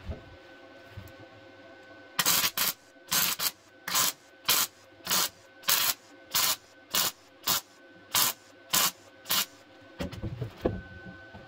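Welder laying a row of short tack welds, one after another, on the steel rear inner wheel arch of a 1976 BMW E21 body. There are about fourteen short welds at roughly two a second, starting about two seconds in and stopping shortly before the end, followed by some handling noise.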